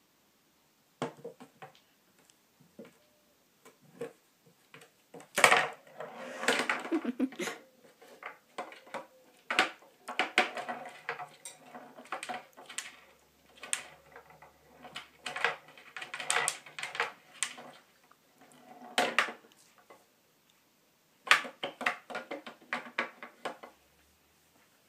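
Small balls of a miniature tabletop pool table clacking against each other and knocking into the table's sides as a cat bats them about. The clacks come in irregular bursts with short pauses between.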